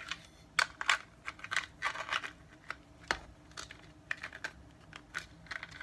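Irregular small plastic clicks and taps, some in quick clusters, from a toy saddle's straps and buckles being worked onto a large hollow plastic dewback figure.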